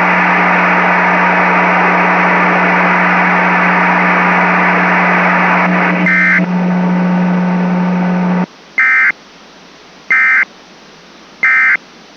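Broadcast static with a steady low hum, which cuts off abruptly about two-thirds of the way in. Then come three short, buzzy digital data bursts about 1.4 s apart: the SAME end-of-message tones that close an Emergency Alert System required weekly test.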